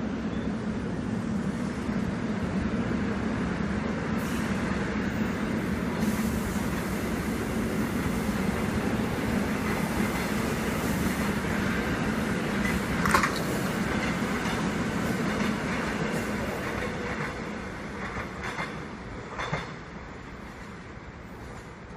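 Seoul Metro Line 1 rheostatic-control electric train pulling away, its wheels and motors giving a steady rumble that fades over the last few seconds as it recedes. A brief wheel squeal comes about 13 seconds in, and a couple of light clicks near the end.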